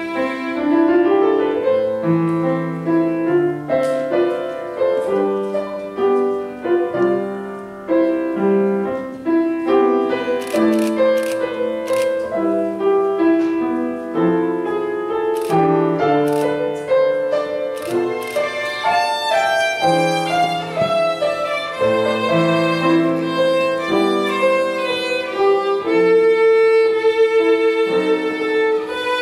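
Violin playing a melody over upright-piano accompaniment, with a long note held with vibrato near the end.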